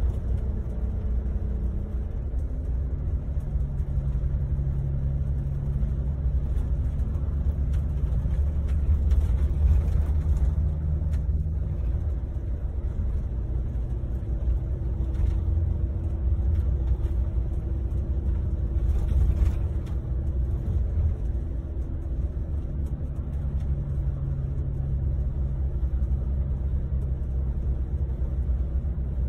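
Cabin noise inside a moving Scania double-decker coach on the highway: a steady low rumble from the engine and road, with a droning engine hum that shifts in pitch now and then.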